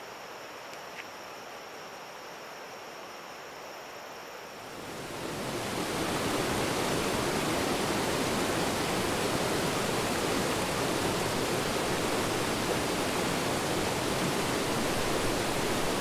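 Shallow river rushing over rocks, a loud, steady roar of water that swells in about five seconds in, after a stretch of faint outdoor hiss.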